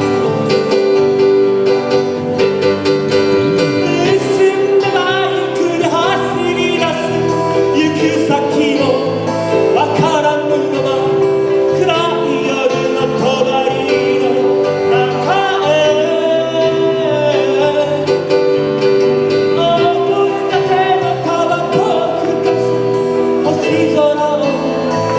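Live pop song on keyboard: sustained chords with a wavering melody line over them, sung or played as a lead.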